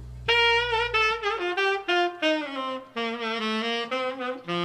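A saxophone plays an instrumental jazz-ballad phrase of stepped, held notes over a low piano chord that fades out about a second and a half in.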